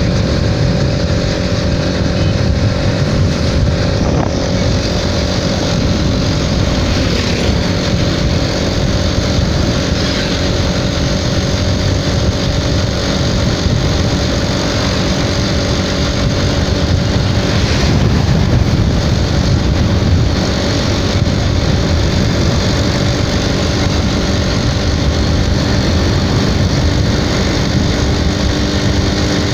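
Motorcycle engine running steadily at cruising speed, heard from the rider's seat with heavy wind noise on the microphone.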